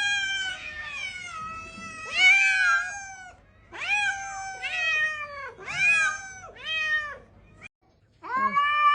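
Domestic cat meowing repeatedly. The meows are drawn-out and arching in pitch, with a run of four quick ones in the middle, a brief silence near the end and then another long meow.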